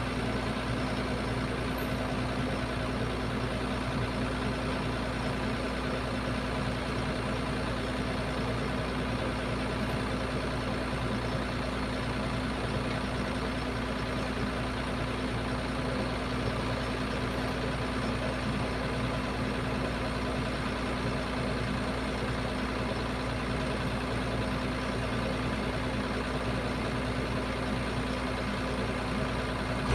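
Heavy diesel engine of an excavator running steadily, with no revving.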